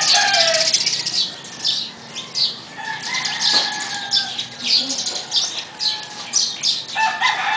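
Plastic snack wrappers rustling and crinkling as they are handled, in short irregular crackles.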